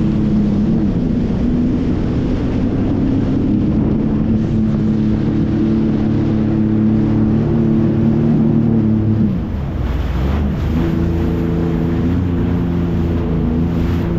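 Jet ski engine running at speed over the water, a steady drone. About two-thirds of the way through, the note briefly dips and drops in pitch, then holds steady again.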